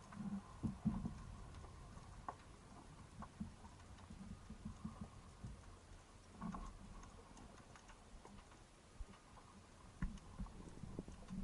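Underwater ambience: scattered faint clicks and ticks with a few soft knocks over a low, steady rumble.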